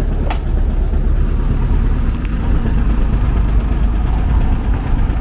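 Steady low rumble of a heavy engine running, with a single short click about a third of a second in.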